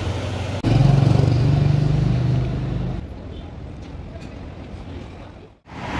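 Steady low hum of a road vehicle's engine, starting with a click and loudest for the first couple of seconds. It then fades and cuts off abruptly near the end.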